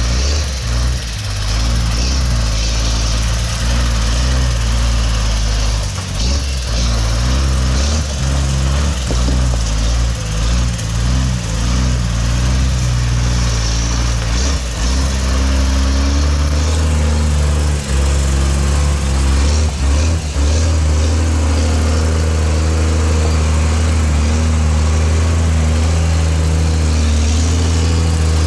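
Unimog truck engine running under load at low revs as it drives through mud and climbs a steep dirt bank; the engine note wavers in the first half and holds steady near the end.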